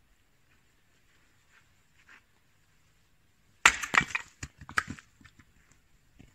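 An axe splitting a log of firewood on a chopping stump: one sharp strike just past halfway, followed by about a second of wood cracking and clattering.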